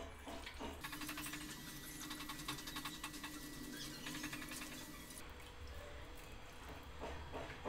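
Raw chicken gizzards being dropped and pushed about by hand in a non-stick pot: soft wet patters and small crackling taps. They are densest from about a second in to about five seconds in.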